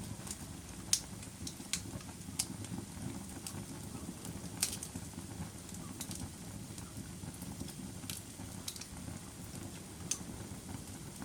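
Wood fire burning in a fireplace, with a steady low rumble and frequent sharp, irregular crackles and pops.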